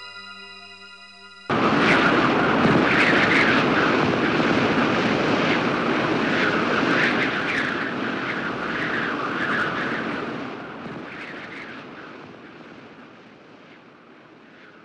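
Steady rushing outdoor noise that starts abruptly about a second and a half in, after the end of keyboard music, and fades gradually over the last few seconds.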